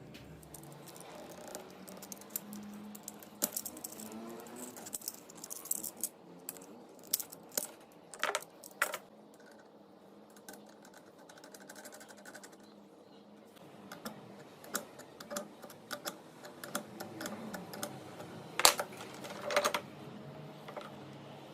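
Irregular light metallic clicks, taps and clinks of small hardware and hand tools being handled, with a sharper knock near the end.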